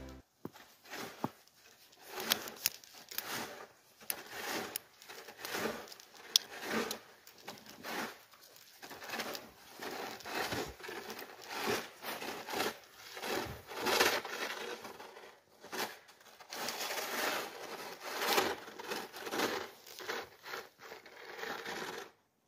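Roof rake dragged through deep snow on a shingled roof in repeated scraping pulls, snow crunching and sliding off the eaves, with a few sharp clicks.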